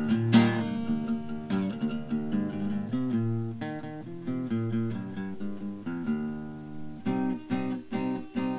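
Background music of an acoustic guitar picking and strumming, with a strummed chord just after the start and quicker, clipped plucked notes near the end.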